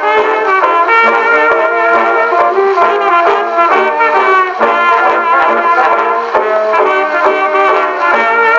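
A 1923 acoustic-era jazz dance band record, an Edison Diamond Disc, playing on a 1922 Edison London Console phonograph: brass-led band music with a narrow sound that has no deep bass.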